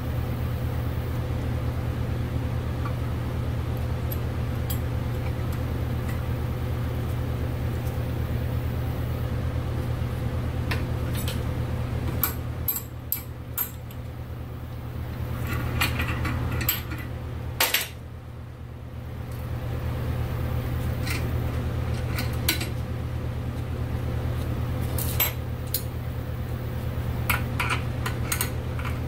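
Scattered metal clicks and clinks from a brake-line flaring tool being worked and handled on a brake line held in a bench vise, over a steady low hum.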